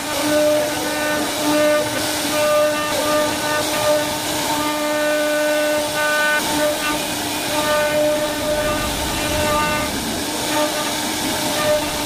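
CNC router spindle running at a steady high-pitched whine while its bit carves into a wooden door panel, with a hiss of cutting. The whine fades in and out every second or so as the bit moves through the wood.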